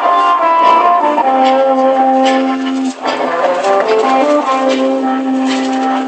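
Street performers' live music: a melody of long held notes over accompaniment.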